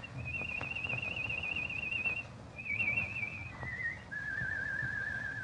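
A man whistling a tune: four warbling held notes stepping downward in pitch, the first and longest held about two seconds.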